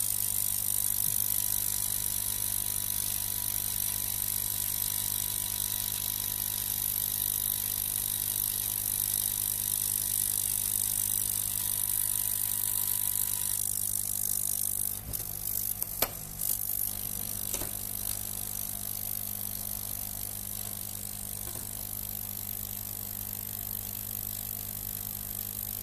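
CO2 laser CNC cutter running a test cut: its stepper motors drive the gantry with a thin steady whine over a low hum and a high hiss. About fourteen seconds in, the whine and hiss stop, a few sharp clicks follow, and the low hum carries on.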